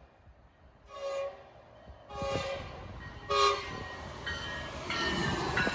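Horn of an approaching Metrolink commuter train sounding three short blasts, the third the loudest, over the growing rumble of the train on the rails as it draws nearer.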